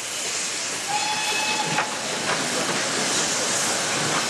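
Steam locomotive hissing steadily, with a brief steady whistle tone about a second in.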